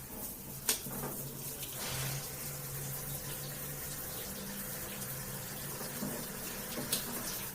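Water running steadily, with a low steady hum beneath it and two sharp clicks, one about a second in and one near the end.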